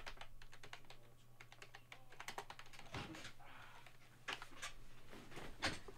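Typing on a computer keyboard: quick, irregular key clicks with a few louder strikes.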